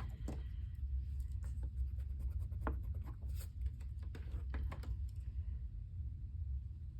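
A thick eraser rubbing on sketchbook paper in short, irregular scratchy strokes, tailing off about five seconds in, over a steady low hum.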